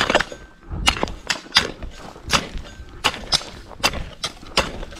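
Two people digging into the ground with hand tools, each stroke a sharp thunk, about two strokes a second in an uneven rhythm.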